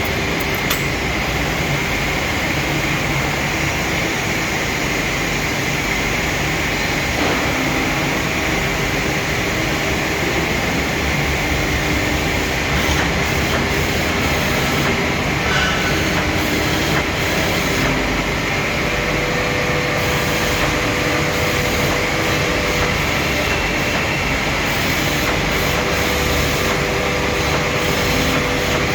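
Loud, steady mechanical running noise, with faint held tones coming and going over it.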